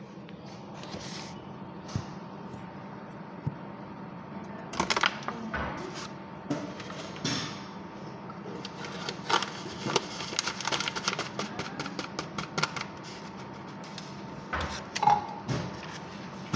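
Handling noise: scattered light clicks and knocks, thickest in the middle and loudest a few seconds in and near the end, over a faint steady hum.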